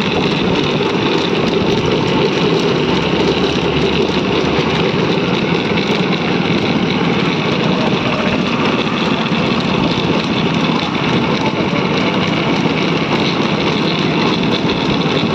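Bullock cart rolling along a paved road: its wooden spoked wheels grinding and rattling on the asphalt in a loud, steady rumble.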